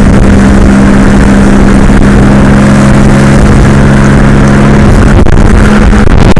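Car driving at highway speed, heard loud from inside the cabin: a steady engine drone over road and wind noise, its tone changing about five seconds in.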